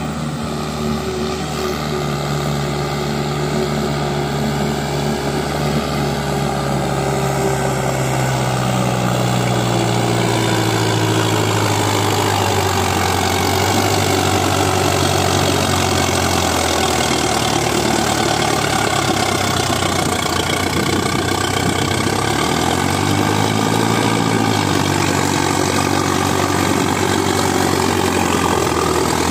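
Preet 6049 60 HP tractor's diesel engine running steadily under load as it pulls a trolley loaded with gravel. Its pitch falls slowly over the first ten seconds, then dips and rises again a little after twenty seconds.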